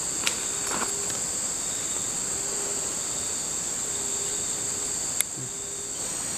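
Steady insect chorus, a continuous high-pitched drone, with two sharp clicks: one just after the start and one about five seconds in.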